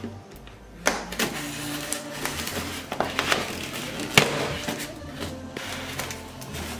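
Knife blade cutting and scraping through packing tape along the seam of a polystyrene foam box: a run of scratchy strokes with a few sharp clicks, the loudest about four seconds in.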